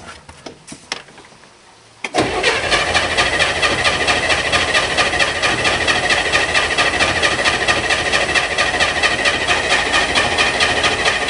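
Corvair Spyder's air-cooled turbocharged flat-six being cranked by its starter, beginning suddenly about two seconds in and going on steadily without catching. It is a cold no-start after a winter's storage, which the owner takes for a flooded engine.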